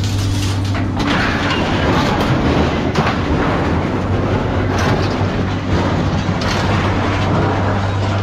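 Pieces of scrap steel being thrown off a truck onto a scrap pile, clanging and rattling at irregular intervals over a steady low engine hum.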